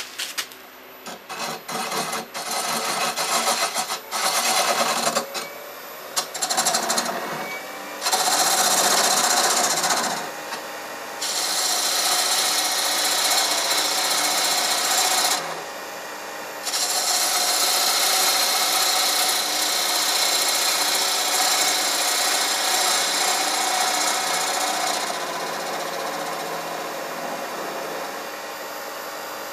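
A half-inch gouge cutting a spinning Oregon madrone yoyo half on a Record Power Herald wood lathe. Short, broken cuts for the first several seconds, then long continuous cuts from about eight seconds in with two brief pauses, growing quieter near the end.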